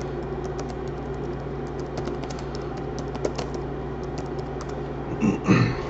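Typing on a computer keyboard: quick, irregular key clicks, over a steady low hum.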